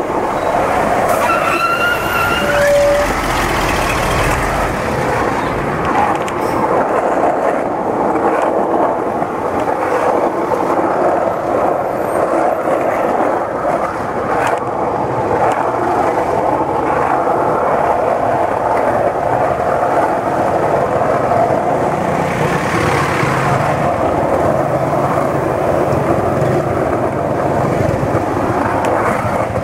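Steady road traffic noise from buses, cars and motorbikes in heavy city traffic, heard from among the moving vehicles. A brief rising high tone sounds about a second in.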